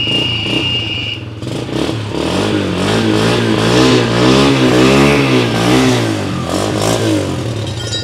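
A new motorbike's engine running, just fired up. It is revved up and back down once, peaking about halfway through, then settles toward idle. A steady high whine sounds over the first second.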